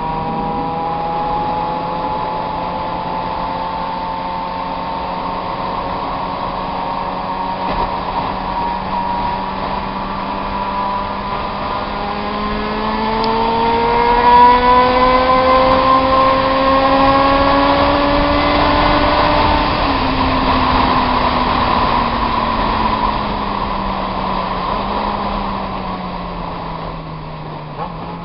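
Yamaha XJ6 motorcycle's inline-four engine running loud. Its pitch rises slowly to a peak about halfway through, then falls away toward the end.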